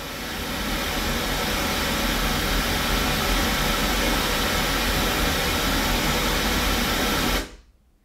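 Steady test noise from full-range loudspeakers during an auto-EQ microphone level check. It grows louder over the first second or so as the master volume is turned up, holds steady, then cuts off suddenly near the end when the level check is stopped.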